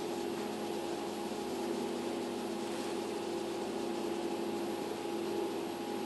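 A steady machine hum with two constant tones over a faint hiss, unchanging throughout.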